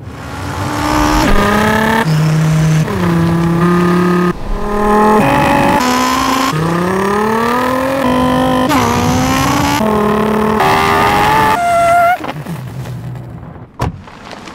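A man imitating a revving car engine with his voice, the pitch climbing and dropping back over and over as if shifting up through the gears, before it fades out. A single sharp click sounds near the end.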